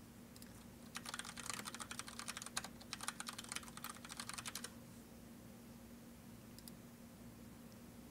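Typing on a computer keyboard: a quick run of keystrokes starting about a second in and stopping after nearly four seconds, over a faint steady hum.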